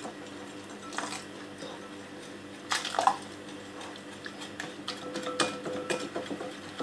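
Wire whisk beating gram-flour (besan) batter in a glass bowl, with irregular light clicks and scrapes of the wires against the glass.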